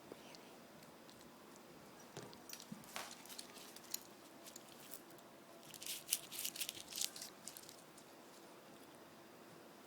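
A cat playing fetch with a toy: faint, scattered light taps and clicks, then a quick flurry of sharp clicks and rustling a little after the middle.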